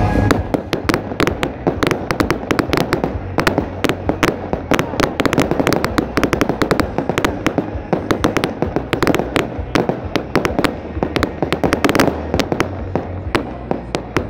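Aerial fireworks bursting, with dense, rapid crackling and popping, many reports a second.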